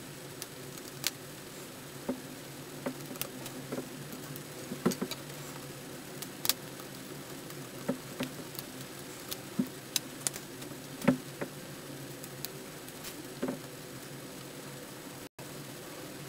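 Small irregular clicks and taps of tiny screws and fingertips on an opened MacBook Pro's case as the battery screws are put back in, over a steady low hum.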